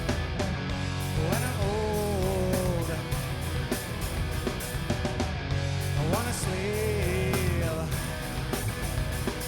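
Rock band playing live with drums, bass and guitars. A lead line slides up and is held with vibrato twice, about a second and a half in and again about six seconds in.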